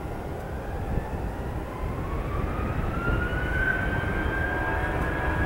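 Airbus A320's IAE V2500 turbofan engines spooling up to takeoff thrust: a whine rises in pitch over about three seconds and then holds steady, over a low rumble.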